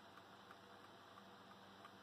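Near silence with a faint, even ticking about three times a second from a small model Stirling engine running steadily, over a low hum.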